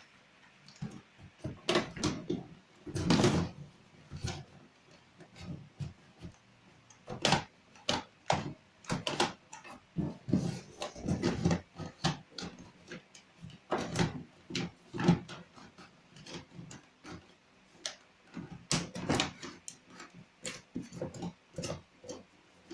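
Irregular knocks, rustles and scrapes of cordless drills being handled and packed.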